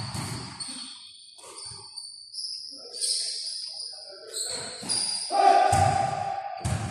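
Basketball game play on a gym court: repeated short high-pitched squeaks of sneakers on the floor, with a few dull ball bounces and some voices in the hall.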